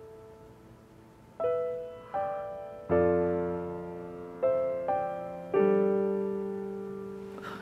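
Slow solo piano background music: about six single notes and chords struck roughly a second apart, each left to ring and fade, with the fullest, deepest chord about three seconds in.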